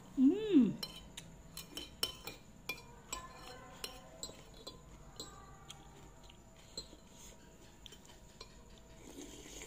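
A loud slurp from a metal spoon about half a second in, rising then falling in pitch, followed by scattered clinks and scrapes of a stainless steel spoon and fork against a plate as the last noodles and broth are gathered up.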